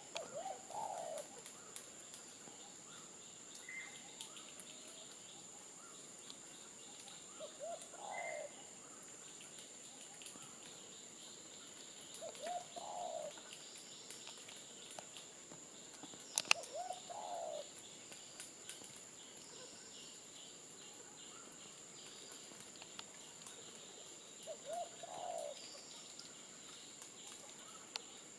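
A bird gives short groups of low cooing notes every few seconds over a steady high-pitched insect whine. One sharp click comes about halfway through.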